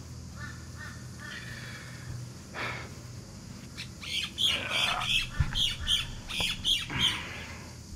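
Birds squawking outdoors: a few calls early on, then a run of harsh repeated calls from about four seconds in, over a faint low steady hum.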